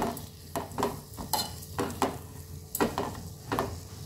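Steel spoon stirring and scraping melting sugar around the bottom of an aluminium pot on the gas: quick repeated scrapes, about two to three a second, as the sugar turns to caramel.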